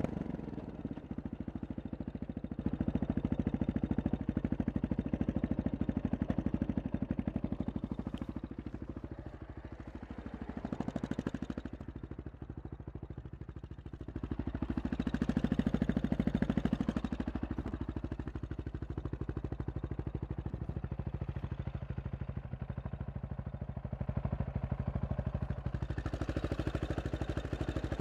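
Honda XR650R's single-cylinder four-stroke engine on a supermoto, first running under way, then dropping back, then running steadily with louder blips of the throttle about halfway through and again near the end.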